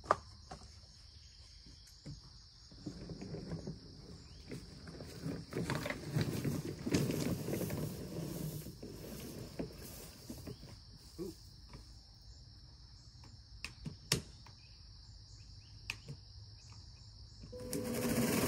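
Quiet rustling and handling noise with a few sharp clicks, under a steady high-pitched buzz. In the last second a Makita 36V (18V X2) cordless lawn mower starts up, its motor and blade spinning up with a rising whine.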